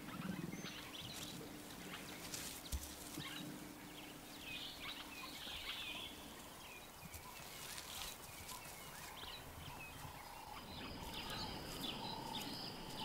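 Faint African bush ambience: scattered short bird calls and chirps, with a steady higher tone joining about ten seconds in.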